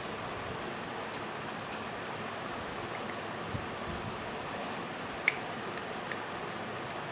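A cat eating dry kibble from a steel bowl: scattered small crunching clicks and light clinks against the metal, with one sharper clink about five seconds in, over a steady background hiss.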